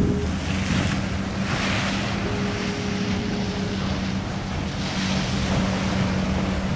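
Heavy ocean surf breaking and washing, swelling a second or two in and again near five seconds, with wind buffeting the microphone. A steady low hum runs underneath, and a short higher tone is held for about a second and a half in the middle.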